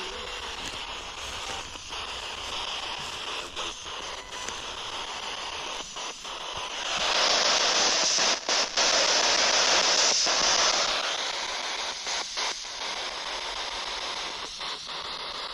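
Spirit box sweeping radio frequencies: steady static hiss, broken by brief dropouts, that swells louder for a few seconds in the middle.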